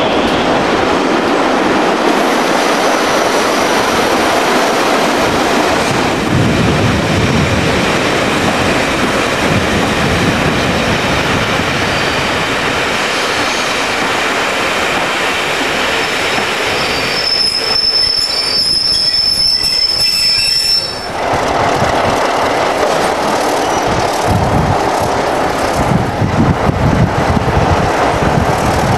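A train moving through the station, its wheels rumbling and clattering on the rails, with a high-pitched wheel squeal for a few seconds past the middle.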